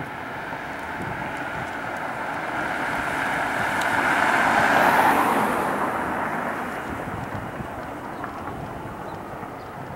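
A car passing close by on the street, its tyre and engine noise swelling to a peak about five seconds in and then fading away.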